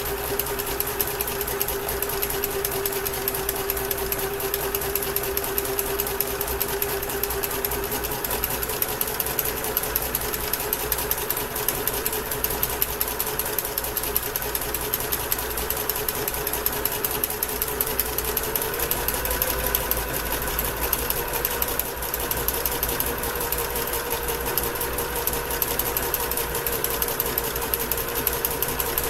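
Basic Kenmore electric sewing machine running continuously, its motor hum and needle stitching rapidly and steadily as it bastes the edge of cross stitch fabric to stop fraying. The motor pitch rises a little about two-thirds of the way through as it speeds up slightly.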